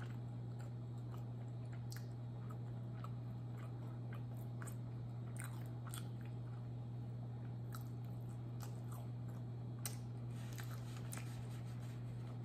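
A person chewing a bite of samosa dipped in butter chicken sauce close to the microphone: faint wet mouth clicks and smacks scattered throughout. A steady low hum runs underneath.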